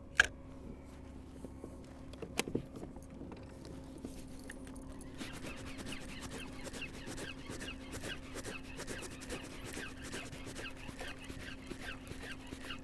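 A pedal-drive kayak's drive being pedalled, with light rhythmic clicking and creaking at about three to four ticks a second from about five seconds in, over a steady low hum. There is a sharp knock just after the start and a smaller one a couple of seconds later.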